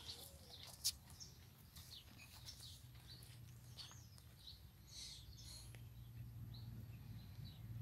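Faint, scattered bird chirps over a low steady hum, with a single sharp click about a second in; the hum grows a little louder after about five seconds.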